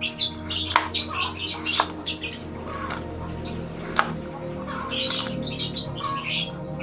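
Lovebirds chirping shrilly in quick bursts of calls, with a few sharp clicks in between.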